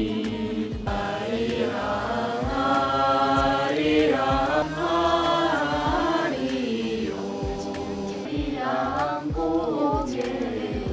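A group of young men and women singing together in unison from lyric sheets, in long held notes that slide and bend between pitches, in the manner of a chant.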